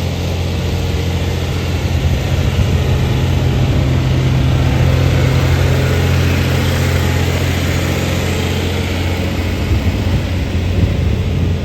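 John Deere 2840 tractor's six-cylinder diesel engine running at a steady speed.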